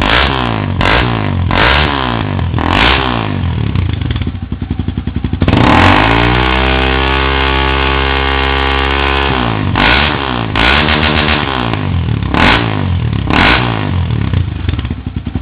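Honda CB 300's single-cylinder engine revved through a Roncar Coyote 2 Way slip-on exhaust with its valve open in sport mode: a string of quick throttle blips, then one long rev held high for about four seconds, then more blips, settling back toward idle near the end.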